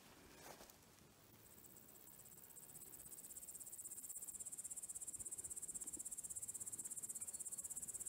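An insect chirring: a high, fast, even pulsing trill that fades in about a second and a half in and grows steadily louder.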